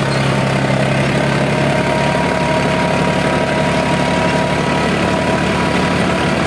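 Farmtrac 60 Powermaxx F41 tractor engine running steadily under load at about 1900 rpm while pulling an 18-disc harrow, a constant even drone.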